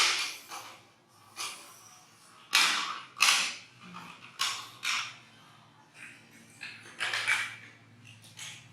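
Toys being knocked about and clattering: a series of about eight sharp bangs, some in quick pairs, each dying away quickly.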